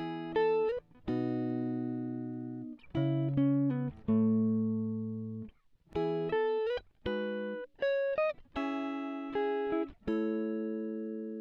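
Background music: a clean guitar plays slow chords and single notes. Each is struck and left to ring out and fade, with a few short sliding notes between chords.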